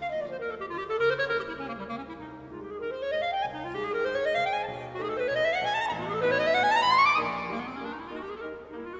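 Instrumental background music: quick runs of notes that climb and fall again and again.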